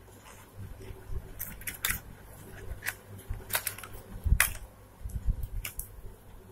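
Handling noise: about half a dozen irregular sharp clicks and light knocks over a low rumble, the loudest about four and a half seconds in.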